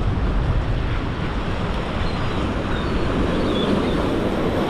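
Ocean water surging and washing against an inlet jetty, with wind buffeting the microphone: a steady, loud rush.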